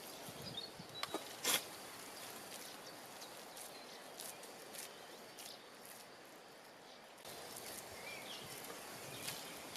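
Faint outdoor ambience with a few scattered sharp clicks and brief high chirps, most clicks in the first second and a half.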